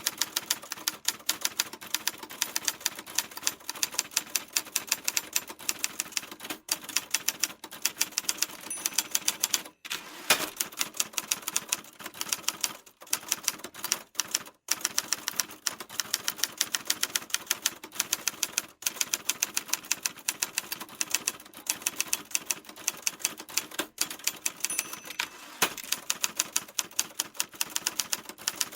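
Typewriter keys struck in rapid, steady runs of sharp clacks, with a few brief pauses between runs.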